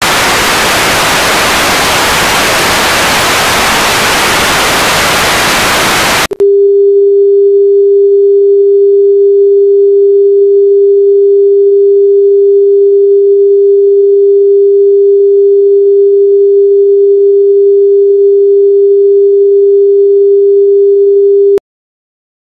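Television static hiss for about six seconds, cut off abruptly by a loud steady single tone, the station's test-pattern tone, which holds for about fifteen seconds and then stops suddenly.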